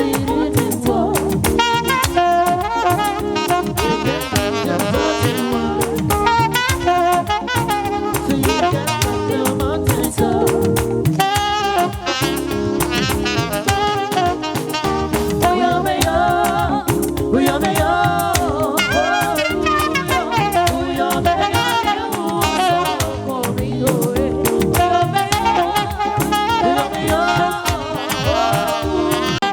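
Saxophone band playing an upbeat tune, the saxophone carrying the melody over a steady beat.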